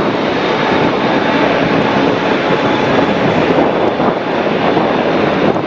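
Twin-engine jet airliner passing low on landing approach, its turbofan engines giving a steady roar with a faint steady whine in it.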